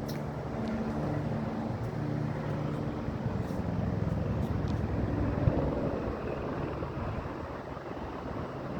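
Helicopter circling overhead: a steady drone of rotor and engine with a low hum, easing off a little near the end.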